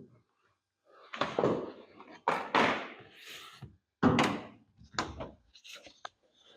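A series of clunks and knocks from work on a 1968 Chevy Impala's door as its interior panel is taken off, about five or six loud ones with a few lighter clicks near the end.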